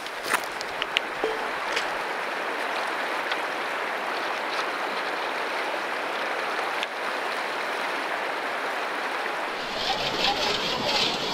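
Shallow creek water running steadily over stones, with a few crunching footsteps on gravel in the first two seconds. Near the end the water sound grows busier, with splashing and small rattling clicks of gravel in a gold pan.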